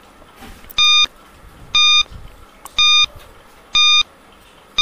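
Countdown timer beeps: short electronic beeps of the same high pitch, one each second, four in a row with a fifth starting at the end.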